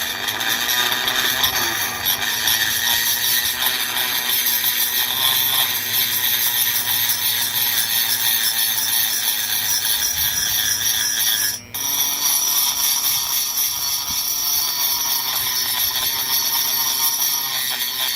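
Multi-speed Dremel rotary tool running a cutter against the aluminium of a chainsaw cylinder's port, grinding out casting flaws: a steady high whine with grinding. It stops for a moment about twelve seconds in, then starts again at a slightly different pitch.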